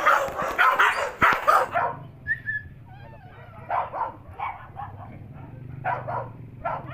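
Husky dogs giving quick, repeated yips and barks, loud for about the first two seconds, then fainter scattered yips and whimpers over a low steady hum.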